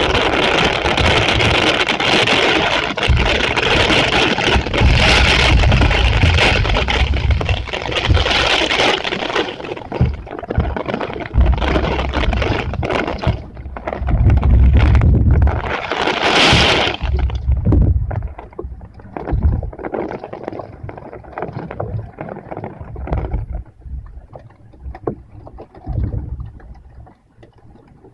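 Typhoon storm: a loud rushing hiss of heavy rain and wind, with gusts buffeting the microphone in irregular low rumbles. It is loudest for the first ten seconds, surges once more about sixteen seconds in, then eases.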